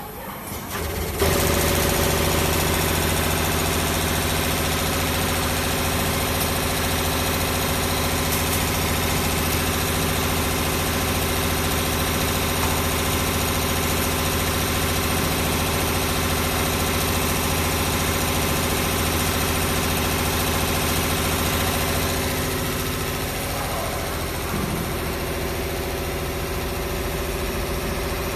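Six-spindle CNC needle winding machine running, winding stator coils: a steady mechanical hum made of several steady tones. It starts abruptly about a second in and drops a little in level a little over twenty seconds in.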